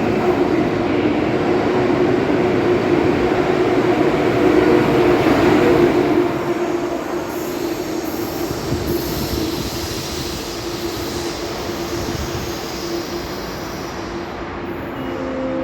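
A train moving along the platform track, a loud rumble with a steady hum that eases off about six seconds in. A faint high squeal of steel wheels follows in the middle.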